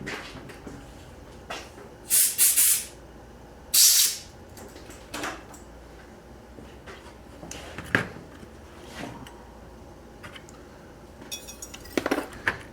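Two short hissing sprays from an aerosol can of brake cleaner, about a second and a half apart, cleaning carburetor parts. Small clicks and knocks of parts being handled follow.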